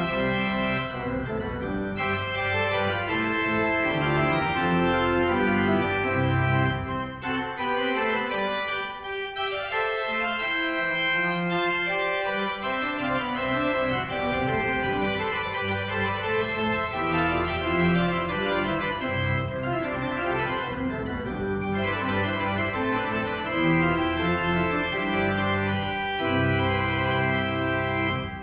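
Steinmann pipe organ playing Baroque contrapuntal music in a church: several voices moving over sustained low pedal notes. The sound dips sharply right at the end.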